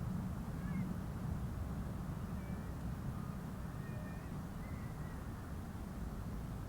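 Faint, brief bird calls, a few short chirps scattered over a steady low rumble of wind or distant traffic.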